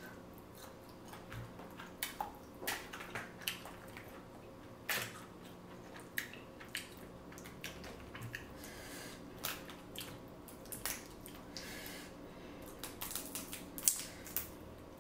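Close-miked eating sounds: wet squishes, smacks and chewing, broken by scattered sharp clicks, with one sharper click near the end.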